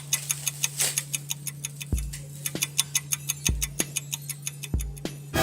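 Background music with a fast, even ticking like a clock, about six ticks a second, over a steady low hum. A deep beat comes in about two seconds in and repeats roughly every second and a half.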